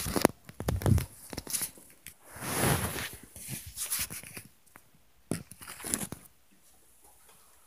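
Close handling noise from a phone being moved while recording: a run of sharp clicks and knocks with a dull thud about a second in, a long rustling scrape around the middle, then more knocks before it goes quiet.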